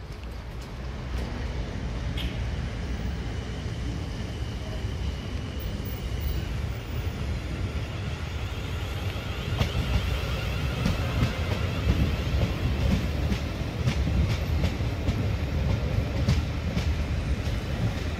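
South Western Railway passenger train approaching and running past close by, its low rumble growing louder, with the wheels clicking over the track in the second half.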